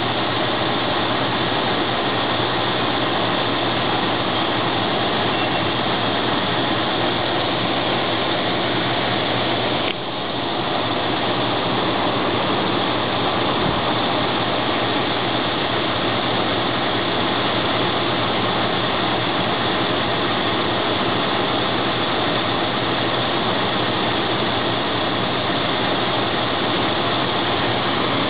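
Ford 302 small-block V8 idling steadily, with one brief break in the sound about ten seconds in.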